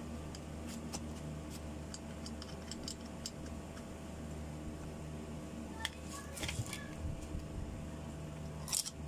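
Light clicks and small metallic clinks from the parts of a mixer grinder motor being handled and fitted back together by hand, with a bunch of louder clinks about six seconds in and again near the end, over a steady low hum.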